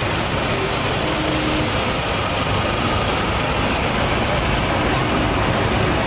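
Vintage tractor engine running steadily at low speed as the tractor drives slowly closer, getting slightly louder toward the end.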